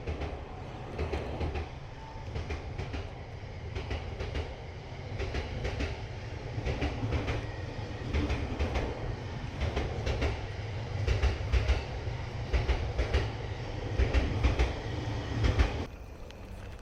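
A train passing on nearby tracks: a low rumble with the clatter of wheels over rail joints, growing louder, then cutting off suddenly near the end.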